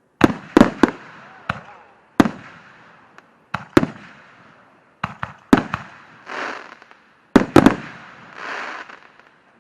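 Consumer aerial fireworks going off: a series of sharp bangs, some in quick pairs, each with a fading echo. A hissing crackle swells briefly about two-thirds of the way through and again near the end.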